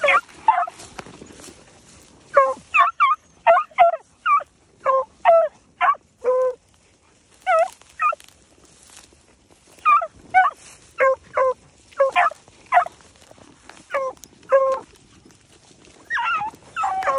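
Rabbit-hunting beagles giving tongue on a rabbit's trail: short, high yelping barks in irregular runs of several calls, with brief pauses between runs.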